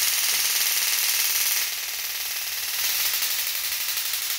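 Taser Bolt 2 running its shock cycle after firing: a loud, steady, rapid electrical crackle.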